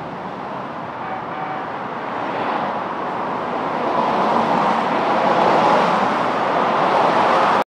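Type IV MAX light rail train moving along the station platform: a steady rumbling hiss from its wheels and running gear that grows louder over the last few seconds, then cuts off abruptly near the end.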